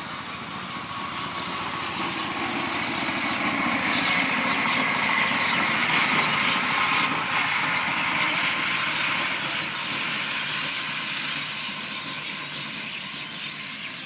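A motor vehicle's engine passing on a nearby road with a steady whine, growing louder to a peak about halfway through and then fading away.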